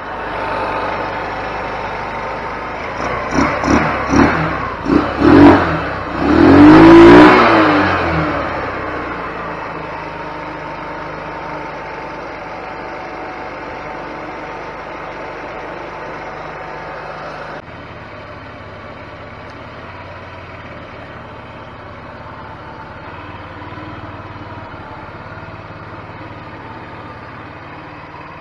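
GY6 150cc single-cylinder four-stroke scooter engine, its valves freshly adjusted, running. A few seconds in the throttle is blipped several times and the revs rise and fall, then it settles back to a steady, smoother idle.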